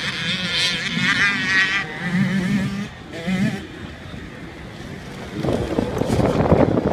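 Motocross dirt bike engines on a track: at first distant, revving with a wavering pitch. Then one bike's engine grows loud as it comes past close by near the end.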